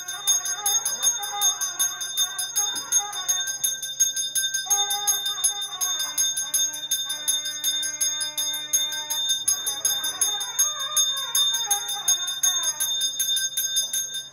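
Temple bell rung rapidly and without pause during the aarti lamp offering, with devotional music under it.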